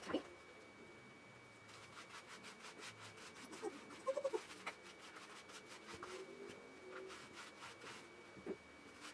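Hands scrubbing shampoo lather through a wet cocker spaniel's coat: a quick run of soft rubbing strokes.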